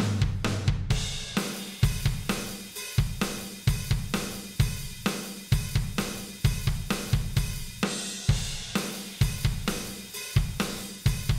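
Background music with a steady drum-kit beat: kick drum, snare and cymbals or hi-hat.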